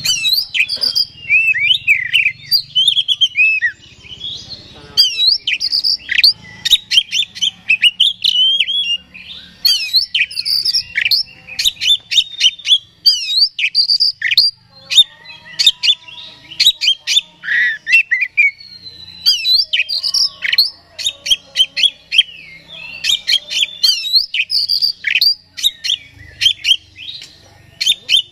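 Oriental magpie-robin singing loud, continuous full song: a fast run of varied whistles, glides and sharp clicking notes with a few short breaks. This is the vigorous song that is played as a lure to rouse other magpie-robins.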